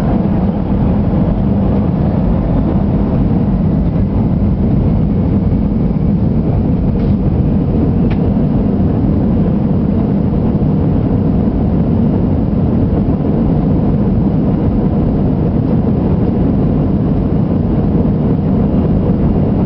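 Airbus A320 engines and airflow during takeoff, heard from inside the cabin as a loud, steady, low rumble.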